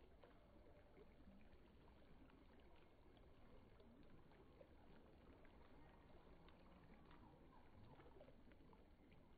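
Faint, steady babble of a small fast-flowing stream running over its bed.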